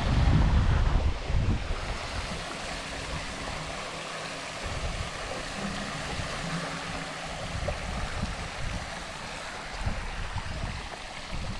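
Wind buffeting the microphone in gusts, strongest about the first second and a half, over a steady rushing hiss.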